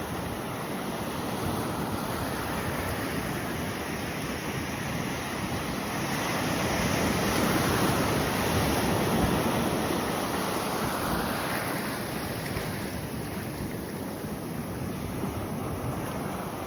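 Ocean surf washing onto a beach: a steady rushing of waves that swells to its loudest about halfway through, then eases off.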